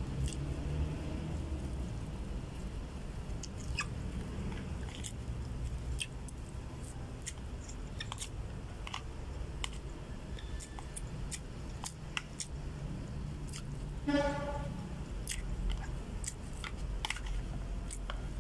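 Close-up chewing of a mouthful of rice, squid and noodles, with scattered clicks of a metal spoon against a plastic food container. About fourteen seconds in comes a brief pitched sound.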